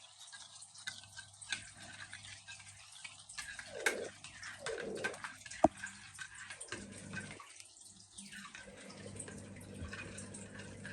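Pancake batter being mixed in a bowl: faint, irregular wet clicks and splashes.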